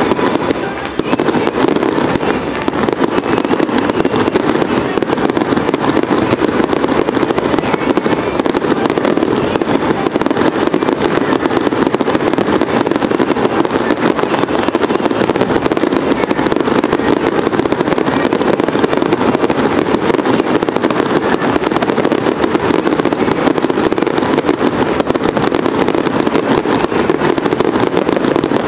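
Aerial fireworks going off in a dense, continuous barrage: shell bursts and crackle overlapping without a break.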